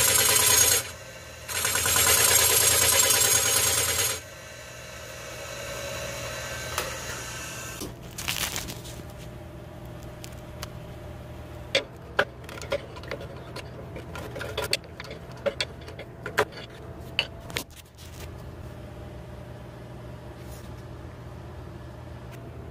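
Wood lathe turning a root-burl hollow vessel. For the first few seconds a hollowing tool cuts inside it with a loud rasping cut that breaks off briefly about a second in. Then the cutting stops, leaving the lathe's steady hum, with scattered sharp clicks and knocks in the middle.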